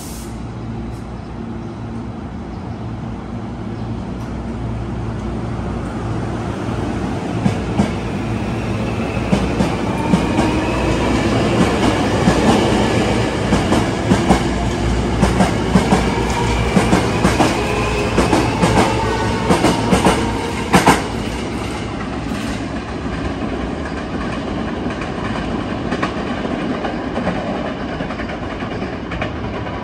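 Hankyu 1000 series electric train pulling out of the station and accelerating past. The traction motors whine, rising in pitch, over rhythmic wheel clacks on the rail joints. The sound eases off after about twenty seconds as the train moves away.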